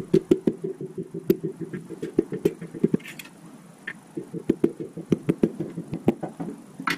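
Rapid light taps of a hammer handle on a piston crown, driving the piston and its rings down into the cylinder bore of a 350 V8 short block. The taps come about five a second in two runs, with a pause of about a second between them.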